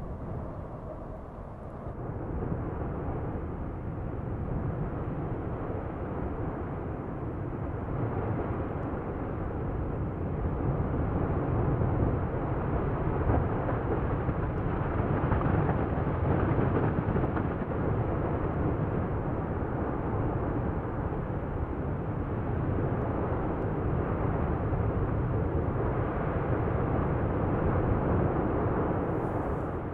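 Steady deep roar of an erupting volcano's lava fountains, a dense rumbling noise with no distinct beats. It grows louder over the first dozen seconds.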